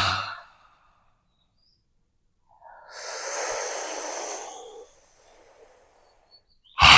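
Yoga lion's-breath practice (Simhasana with Kaki Mudra). A loud, forceful 'haa' exhale with the tongue out trails off at the start. About two and a half seconds in comes a softer, breathy inhale of about two seconds through pursed, beak-shaped lips. The next loud 'haa' exhale begins right at the end.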